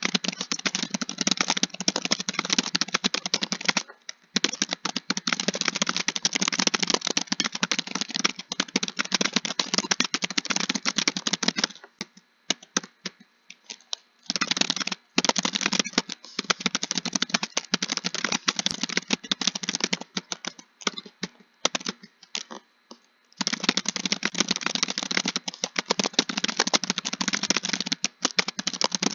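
Fast continuous typing on a computer keyboard, a dense run of key clicks that stops briefly three times, with a longer break about halfway through.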